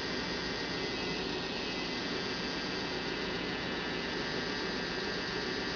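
Handmade rotary tattoo machine with a small Nanco electric motor running steadily, driving the needle bar up and down: an even motor hum with several fixed tones, at one unchanging speed.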